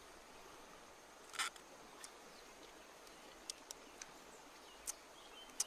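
A few short, sharp crackles from a charred grilled rat in a split bamboo skewer being handled and torn at. The loudest comes a bit over a second in, and several quicker ones follow near the end, over a faint steady insect hum.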